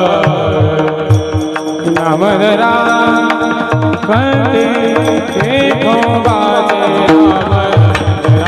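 Marathi varkari kirtan music: a sung devotional melody with gliding notes over sustained accompanying tones, and a hand drum playing steady rhythmic strokes whose bass notes bend downward.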